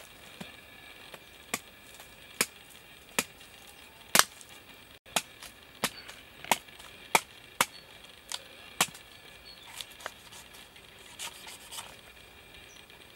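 A knife blade chopping into the husk of a young green coconut: about a dozen sharp cuts at an uneven pace, the hardest about four seconds in, becoming lighter and fainter in the second half.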